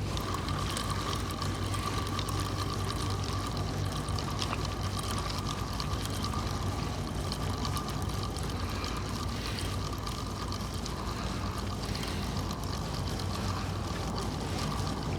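A steady low machinery hum with a thin, even high whine held over it, against a background of outdoor noise.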